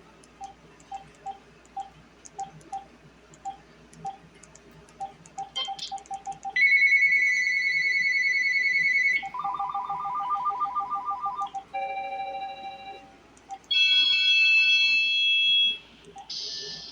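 Uniden D3280-2 cordless phone handset: short key beeps with soft button clicks for about six seconds as its menu is stepped through, then its ringtones played one after another. A fast high trill, a warbling ring, a lower two-tone ring and a brighter chord-like tone each sound for two or three seconds.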